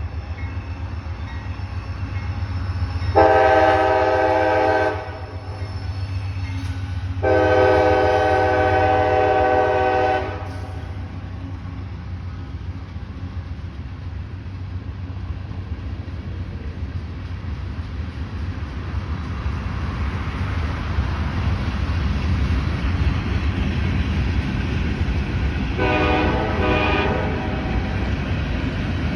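CSX CM44AC diesel-electric locomotive sounding its air horn: two long blasts of about three seconds each, then short blasts near the end, the long-long-short pattern used at a grade crossing. Under the horn, the steady rumble of the locomotive and its freight train grows louder as it comes closer.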